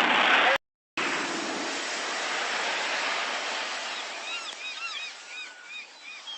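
Steady rushing noise that slowly fades. From about four seconds in, a run of short repeated whistled chirps sounds over it.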